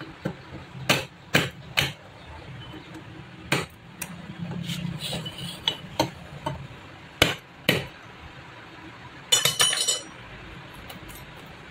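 Sharp metal knocks, about seven spread over the first eight seconds, from a steel tube tool worked down onto the valve spring retainers of a Yamaha R15 V2 cylinder head to free the valve collets. Near the end comes a brief ringing clink of small loose metal parts.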